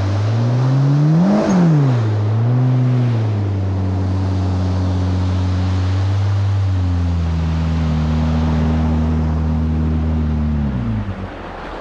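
Yamaha GP1800R SVHO jet ski's supercharged four-stroke engine running under way with water spray hissing off the hull. The engine note rises and falls back once about a second and a half in, holds steady, then drops away near the end.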